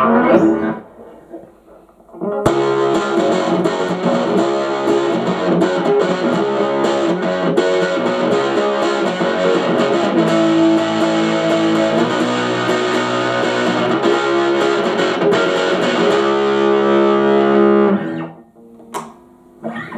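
Aria STG series electric guitar played with the tone control turned fully up: after a short pause, a run of picked notes and chords about two seconds in, ending on a held chord that dies away near the end, followed by a sharp click.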